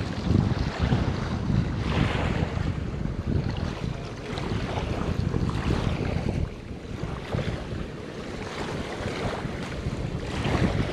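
Wind buffeting the microphone outdoors, a gusty rumbling hiss that swells and eases.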